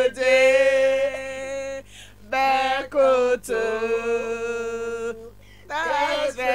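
A woman singing in long, steady held notes, phrase after phrase, with two short breaths between phrases.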